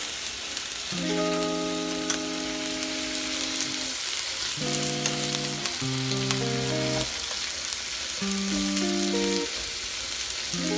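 Bacon strips and a piece of chicken frying in hot oil in two pans, a steady sizzle, under background music of held chords.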